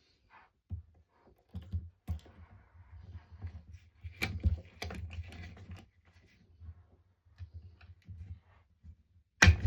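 Hands working cable ends with small hand tools: irregular clicks, rustling and light knocks, with one sharp, louder click near the end.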